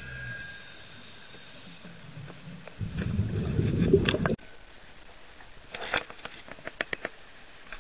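Muffled low underwater rumble that swells louder about three seconds in and cuts off abruptly, followed by choppy sea water at the surface with scattered small splashes and clicks.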